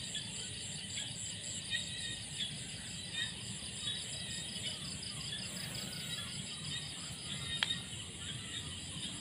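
Night insects chirring in a steady, evenly pulsing chorus, with one sharp click about three-quarters of the way through.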